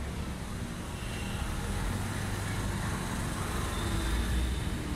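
Steady low rumble of motor-vehicle noise, with a hiss-like haze above it, growing slightly louder near the end.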